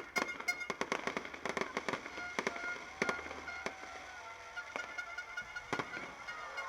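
New Year fireworks going off in rapid bangs and cracks, thickest in the first two seconds and then more scattered, with thin whistling tones running under them.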